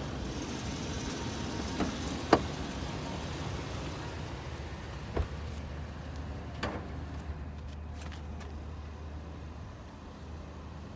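The 2006 Toyota Sequoia's 4.7-litre V8 idling with a steady low hum, waiting to climb onto a recovery board. A few sharp knocks, the loudest about two seconds in.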